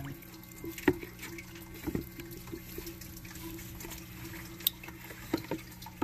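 Water splashing and trickling as hands move a small stingray about in shallow water in a container, with a few short, sharp splashes, over a steady low hum.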